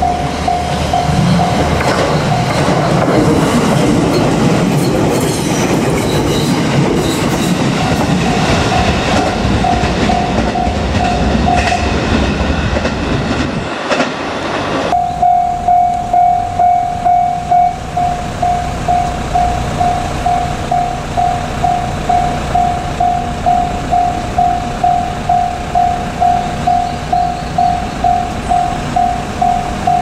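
Japanese level-crossing warning bell ringing in a steady repeated ding, about one and a half strikes a second. For roughly the first half it sounds under the rumble and clatter of a passing electric train. The train noise cuts off abruptly about halfway, leaving the bell ringing alone.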